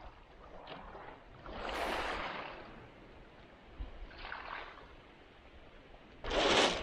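Small waves washing up on a pebble shore: two soft swells of surf, one about two seconds in and another about four seconds in. A louder burst of noise begins near the end.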